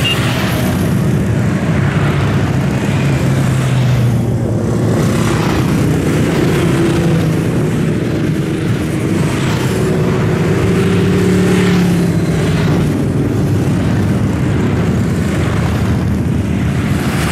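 Many motorcycles riding past in a steady stream: a continuous engine drone, with single bikes swelling and fading as they go by.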